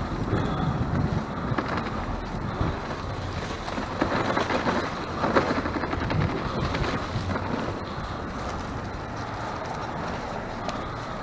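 A bicycle being ridden, heard from the GoPro riding along on it: a steady rush of road noise with many small rattles and knocks from the bike and its load. The rattling is a little louder in the middle.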